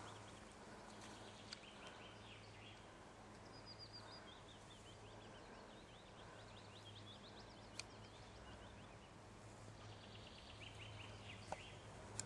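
Near silence: faint songbird trills, short runs of quick high chirps, come and go over a low steady hum, with a few faint clicks.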